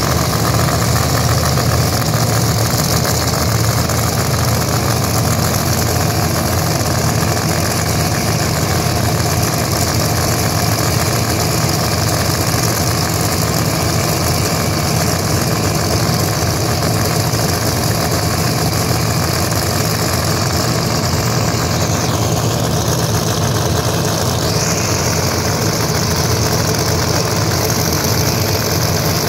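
Pro Mod drag race car's V8 engine idling steadily.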